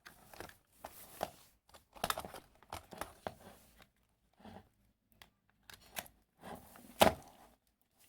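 A USB cable being handled and plugged into a USB meter and charger: irregular rustling and scraping with scattered clicks, and one sharp click about seven seconds in.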